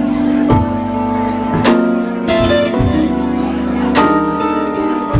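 Live band playing an instrumental passage on electric keyboard, guitar and drums, with held chords and a drum hit about once a second.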